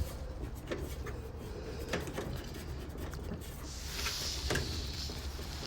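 Water inlet hose couplings being threaded by hand onto the washer's inlet valves: light scattered clicks and knocks, with a short scraping rub about four seconds in.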